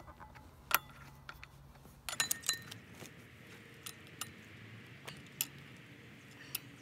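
Scattered metal clinks and taps of a socket and extension on the flywheel bolts as they are fitted and tightened, with a quick run of clinks about two seconds in.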